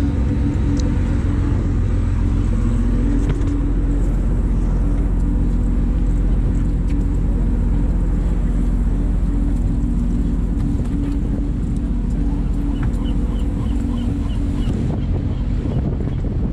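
A boat's engine running steadily under way, a low drone with a steady hiss over it. About 13 seconds in comes a quick run of short high chirps.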